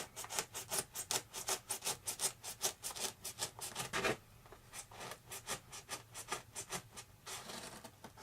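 X-Acto knife blade sawing back and forth through a foam wing, rapid rasping strokes about five a second, the blade sunk in to its base. The strokes are louder in the first half and go on fainter after about four seconds.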